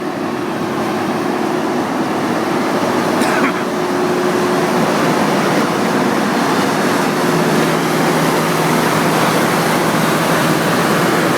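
Diesel engine of a Loram RG 309 rail grinder's power car running steadily and loudly: an even rushing noise with a faint steady hum underneath, and a brief higher squeak about three seconds in.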